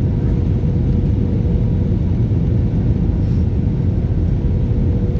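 Steady low rumble of a running vehicle, with a faint steady hum above it.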